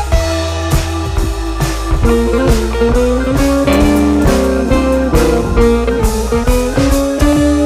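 Background music: electric guitar over bass and drum kit with a steady beat, blues-rock in style.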